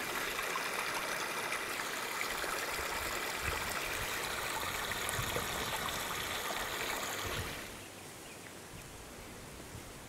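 Shallow rocky creek trickling and splashing over stones, a steady rush of water. About seven and a half seconds in it drops to a much quieter hiss.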